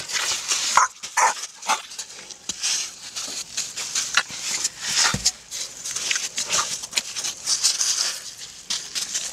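A baby Asian elephant right at the microphone, giving short squeaks and snuffling breaths through its trunk. Its nudging makes scuffs and knocks against the camera, with one low thump about five seconds in.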